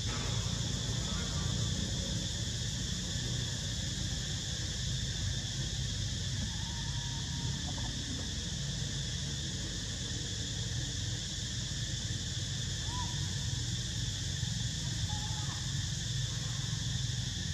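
Steady, high-pitched chorus of insects over a constant low rumble, with a few brief faint chirps.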